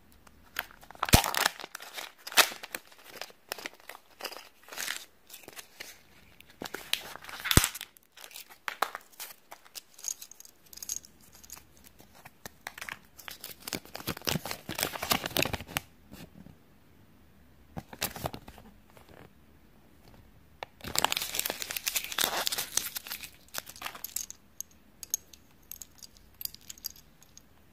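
Hands unpacking a Kinder Joy toy capsule: the plastic capsule's seal peeling and tearing, and the folded paper leaflet crinkling and rustling as it is opened, in uneven bursts. Two sharp plastic clicks stand out in the first eight seconds.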